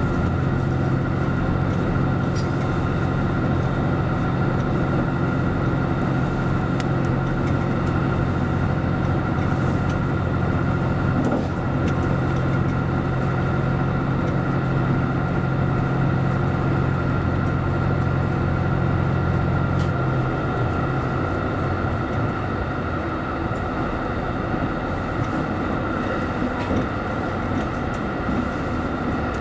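Series 85 diesel express railcar running at speed: its diesel engines make a steady low drone over wheel and rail noise. About twenty seconds in, the drone drops away as the power is shut off and the train coasts, leaving the rolling noise.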